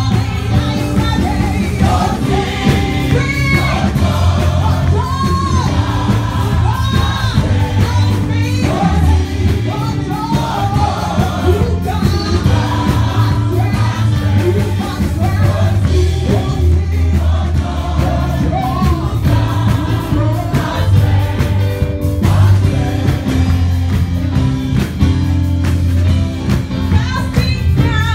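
Live gospel praise music: voices singing with a choir over a band with a strong, steady bass line and drums.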